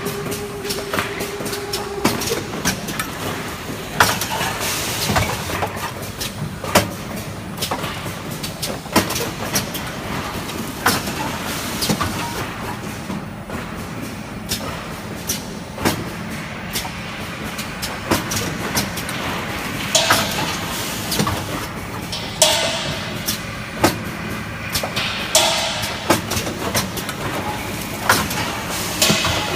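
Automatic cough-syrup bottle cartoning and film-overwrapping machine running: a steady mechanical hum under irregular clicks and knocks, with a few short spells of hiss in the second half.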